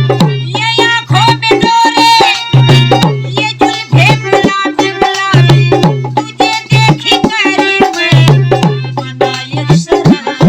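Instrumental interlude of Indian folk ghazal music: quick hand-drum strokes with deep, recurring bass booms under a pitched melody instrument.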